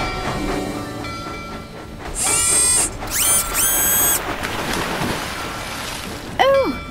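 Steam engine whistle blowing in short blasts about two to four seconds in, over background music, followed by a noisy rush; a character's straining cry comes near the end.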